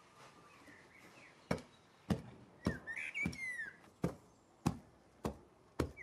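Eight dull thuds at an even pace, about one every 0.6 s, starting about one and a half seconds in: loose sandy garden soil being compacted on a mound. A bird chirps faintly about halfway through.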